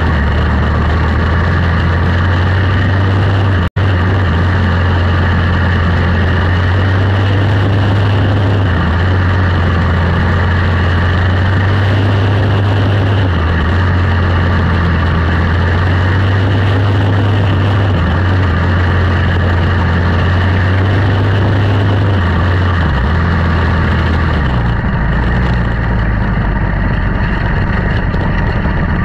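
Quarter midget race cars with Briggs & Stratton Animal single-cylinder engines running laps in a race, a loud, steady drone whose pitch shifts as the cars go around. The sound cuts out for a split second about four seconds in.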